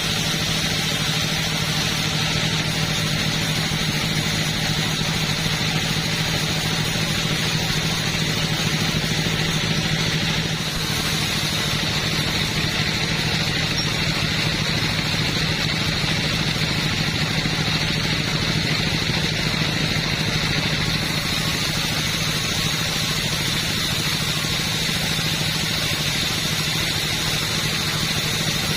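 Two-stroke chainsaw engine running steadily at a constant pitch, with a slight dip in level about ten seconds in.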